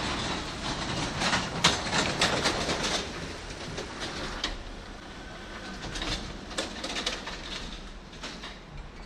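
Class 20 diesel shunting locomotive with its English Electric eight-cylinder engine running as it moves slowly away along the track. A flurry of clicks and knocks from wheels and rails comes over the first few seconds, then the sound fades, with a bird calling.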